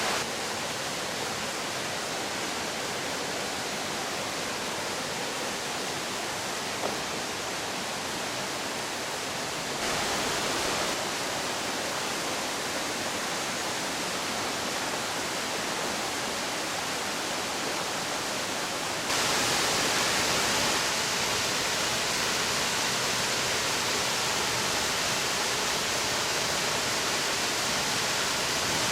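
Mountain stream rushing and splashing over rocks, a steady rush of water that jumps abruptly louder about ten seconds in and again about nineteen seconds in.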